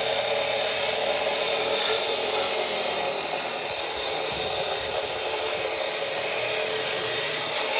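Steady, loud machine noise with a strong hiss from equipment at a plumbing dig site, cutting off suddenly right at the end.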